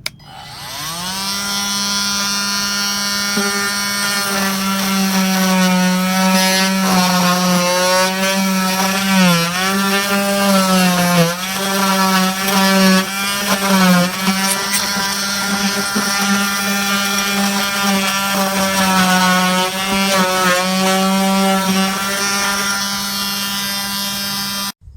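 KIMO 20V cordless oscillating multi-tool spinning up and running, its blade cutting into ceiling drywall. It holds a steady buzz, dips in pitch several times under load about halfway through, and stops abruptly near the end.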